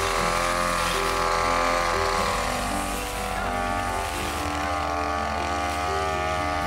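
Backpack two-stroke brush cutter running at high revs while cutting tall grass: a steady engine whine whose pitch wavers slightly as the blade meets the grass.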